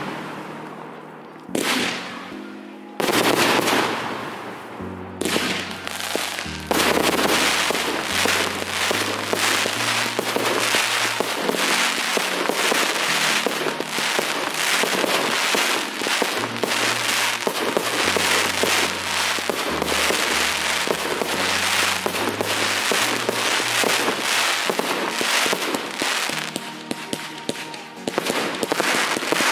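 Fireworks display: a couple of loud shell bursts in the first few seconds, then from about five seconds in a dense, continuous crackling and popping of many bursts at once. Music with a stepping bass line plays underneath.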